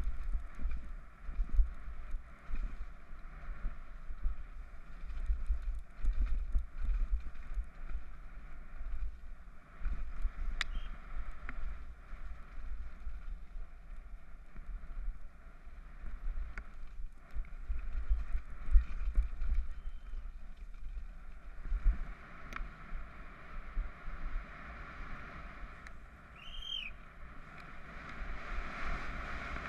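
Wind rush and buffeting on a helmet-mounted camera during a fast downhill mountain-bike run, with an uneven low rumble and scattered knocks and rattles from the bike over rough trail.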